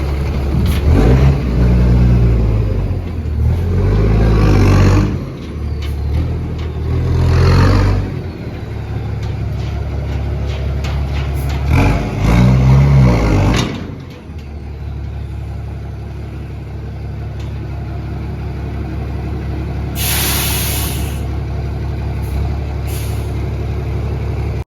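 Ford Cargo 2422 truck's straight-piped turbo diesel, with a comb fitted in the turbo intake, pulling through the gears. The revs climb and drop off at each shift, three times in the first fourteen seconds, then the engine settles to a steady lower running. About twenty seconds in there is a short loud air-brake hiss, and a smaller one a few seconds later.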